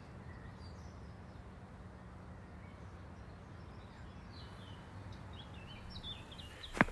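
Quiet outdoor ambience: a low steady hum with faint bird chirps in the middle. Near the end comes one sharp footstep.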